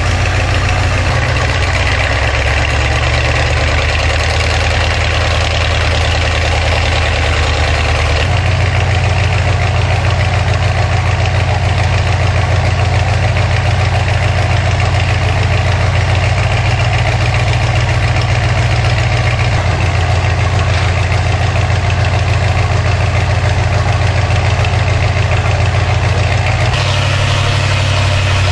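A sand-suction dredge boat's engine runs steadily and loudly, with slurry of sand and water rushing from the dredge's discharge pipe. The engine's low tone shifts abruptly a few times.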